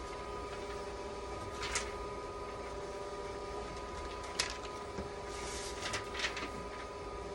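Steady electrical hum made of a few constant tones, with several short clicks and light knocks of handling scattered through it, the loudest about four and a half seconds in.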